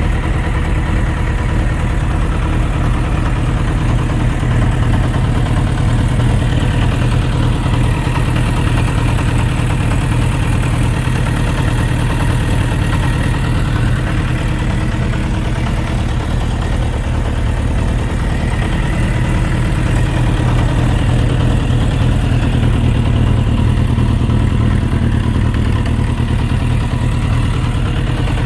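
Suzuki RF900's inline-four engine running steadily at idle with a ticking, knocking noise, which the owner, unsure of its cause, suspects could be connecting-rod bearings with too much clearance.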